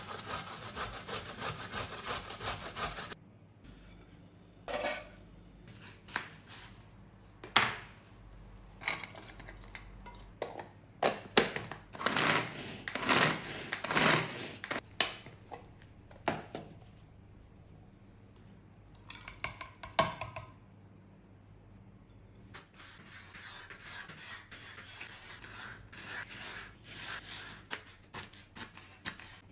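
A carrot grated on a stainless-steel box grater over a wooden board, fast rasping strokes for about three seconds. Then a pull-cord hand chopper is worked in a series of separate pulls with short pauses. Near the end a knife chops green capsicum on the wooden cutting board in quick taps.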